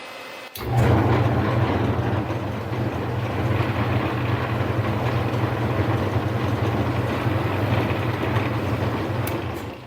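Rebuilt Delta slow-speed drill press, converted to a tapping machine, starting up in forward gear about half a second in: its motor and reduction gearing run with a steady mechanical hum, then shut off just before the end.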